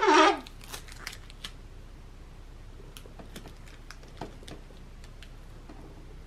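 Faint, scattered clicks and light rustles from a plastic sheet and a packing-tape dispenser being handled on a table.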